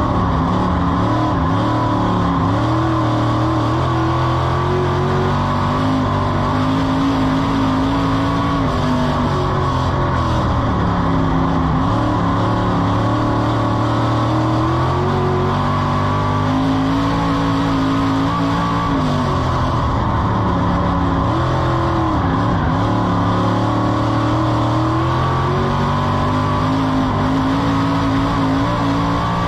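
Dirt-track stock car's racing engine heard from inside the car, running hard on the straights, its pitch falling as the driver lifts for each turn and climbing again on the way out, over and over.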